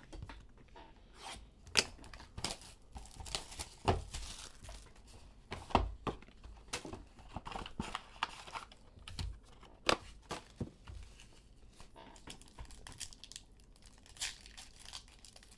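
A sealed box of Luminance football cards being opened by hand: plastic wrap and cardboard tearing and crinkling in irregular crackles, with a few sharper taps and snaps.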